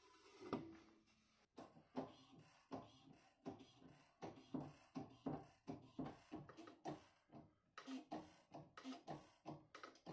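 Hand-pumped hydraulic shop press being worked, a run of short clicking strokes about three a second as the ram closes on the wooden formers bending the aluminium sheet.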